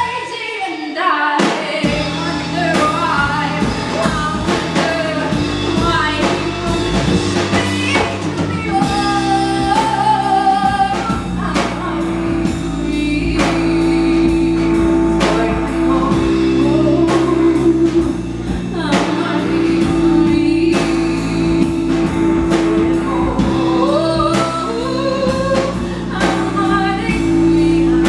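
Live band playing a song: a woman singing lead over acoustic guitar, electric bass and drums.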